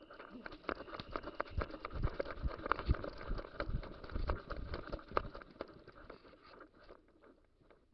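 Quick, irregular footsteps with knocks and clicks close to the microphone, like a player moving fast on foot; the thumps are heaviest in the middle and thin out near the end.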